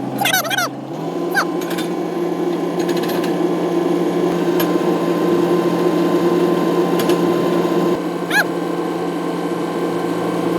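A power tool's motor running steadily, its pitch stepping up about a second in, with a few brief squeals.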